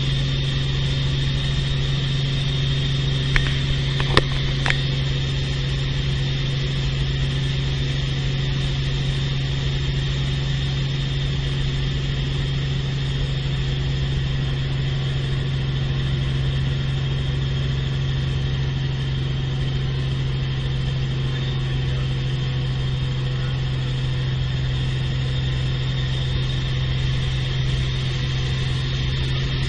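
Steady drone of a small helicopter's engine and rotor heard from inside the cabin, with three brief clicks about three to five seconds in.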